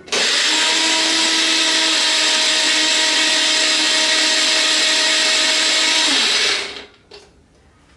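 Small bullet-style personal blender running at a steady pitch while blending a liquid oil-and-lemon dressing. It starts sharply, then winds down and stops after about six and a half seconds.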